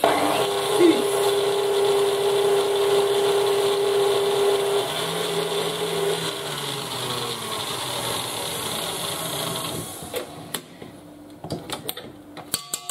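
KitchenAid Artisan stand mixer running, its wire whisk beating cream with pistachio paste: a steady motor hum and whirr whose note changes about five seconds in. It stops after about ten seconds, followed by a few clinks and knocks of the wire whisk against the steel bowl.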